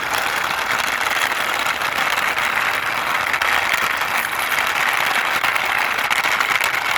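Plastic toy dump truck pushed by hand, its wheels rolling across a surface with a steady, gritty hiss and rattle.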